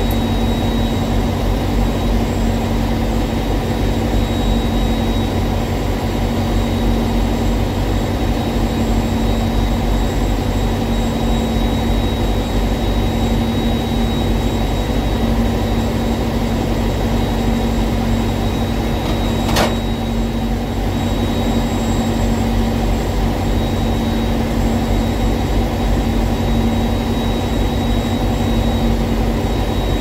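Heavy diesel engine idling steadily, with a faint high whine over a low hum, and a single sharp click about twenty seconds in.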